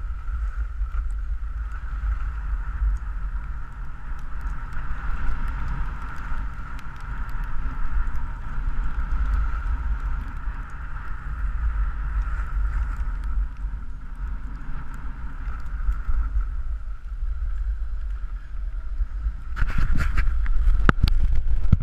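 Wind buffeting the microphone of a camera worn by a skier running downhill, a steady low rumble mixed with the skis' hiss on snow. Near the end comes a cluster of sharp knocks and scrapes, louder than the rest.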